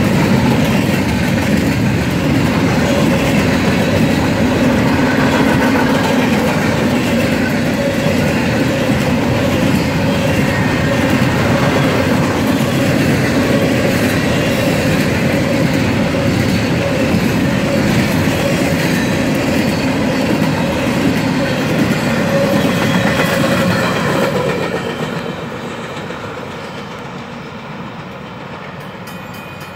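Empty intermodal well cars of a freight train rolling past close by: a steady loud rumble and clatter of steel wheels on the rails. About 24 seconds in the sound drops to a quieter, more distant train rumble.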